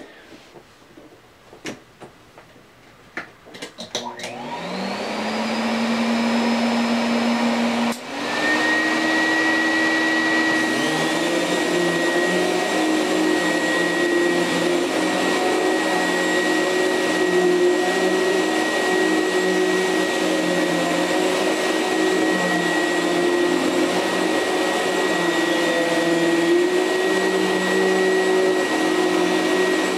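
Filter Queen Majestic 95X canister vacuum motor switching on at low speed about four seconds in and winding up to a steady hum. A few seconds later it is switched to high speed: after a brief dip it settles into a higher-pitched, steady whine.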